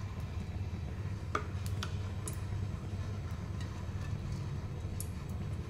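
A spoon tapping and scraping against an aluminium kadai as ghee is spooned into the hot pan: a handful of sharp clicks, several close together in the first half and one more near the end. A steady low hum runs underneath.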